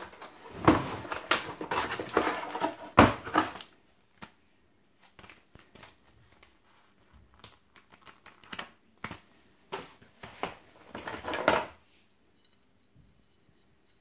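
Hands handling a hard plastic tool case and its contents: dense clattering and knocks for the first few seconds, then scattered light clicks and paper rustling from an instruction manual, with a louder rustle about eleven seconds in.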